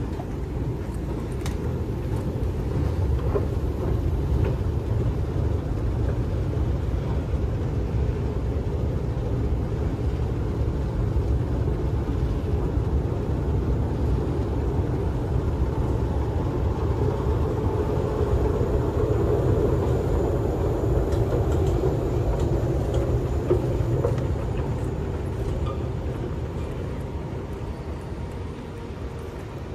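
Street traffic rumbling steadily. A vehicle passing grows louder about two-thirds of the way through, then fades away near the end.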